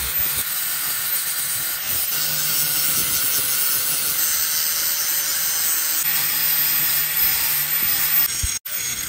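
Electric angle grinder with an abrasive disc grinding a rough cast copper-alloy axe head: a steady hiss of disc on metal over the motor's hum. The sound breaks off for an instant near the end.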